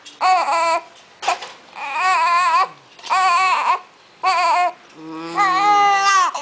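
Newborn baby crying in a series of wails, six in all with short gasps between, the last one the longest.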